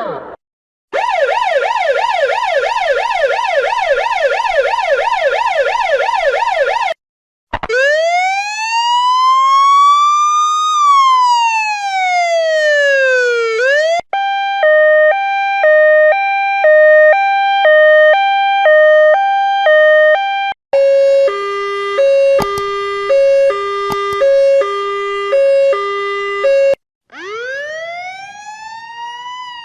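A run of emergency-vehicle siren sounds, one after another: a fast yelp sweeping up and down two or three times a second, then a slow wail rising and falling once, then two hi-lo two-tone patterns switching about once a second, the second lower in pitch, and near the end another wail rising.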